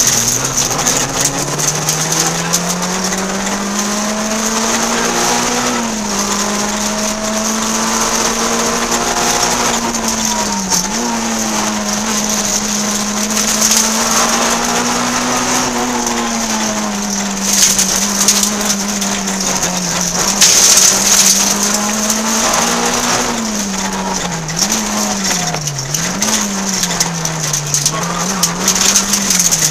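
Peugeot 106 N2 rally car's four-cylinder engine at full stage pace, loud inside the cabin: revs climb at the start and hold high, dip and recover sharply about ten seconds in, and swing down and up several times in quick succession near the end.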